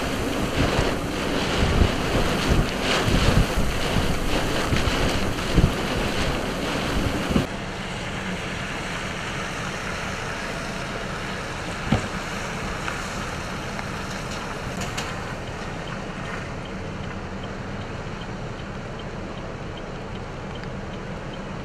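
Strong gusting hurricane wind buffeting the microphone with a heavy low rumble. About seven seconds in it cuts abruptly to a steadier, quieter windy hiss, with one short sharp knock partway through.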